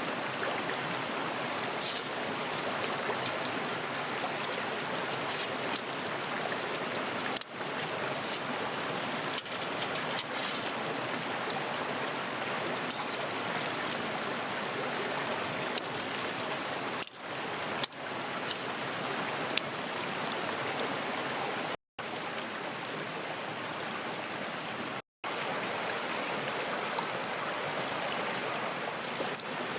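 A river flowing steadily, a continuous rush of water, with a few faint clicks and two brief cut-outs about two-thirds of the way through.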